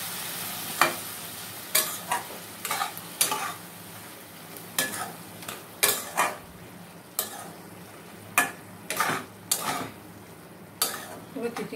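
A spatula stirring a wet mix of snake gourd and prawns in a kadai, scraping against the pan in irregular strokes every half second to a second, over a steady sizzle of frying.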